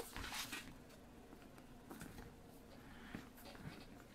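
Faint rustling and scraping of hands handling a cardboard product box as it is opened, with a few light taps.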